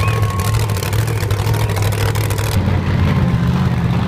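Loud monster truck engines running as the trucks drive past in a parade, a deep steady rumble. The sound changes abruptly about two and a half seconds in, when the upper hiss drops away and the rumble continues.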